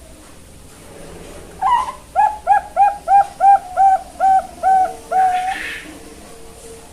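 Young Bangkok-strain zebra dove (perkutut) singing its cooing song: an opening note, then a quick run of about nine short coos, roughly three a second, ending in one longer coo.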